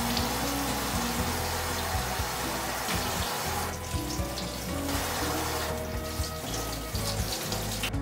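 Tap water running into a kitchen sink, its hiss thinning briefly twice as the stream is interrupted, over soft background music.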